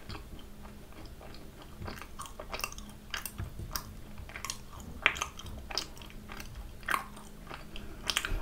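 Close-miked chewing of a yellow-cheese macaron: a string of soft wet mouth clicks and smacks, with a few louder ones.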